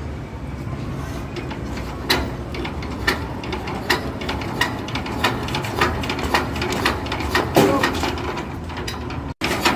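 Combine harvester engine running low and steady, with sharp mechanical clicks or knocks repeating about every two-thirds of a second.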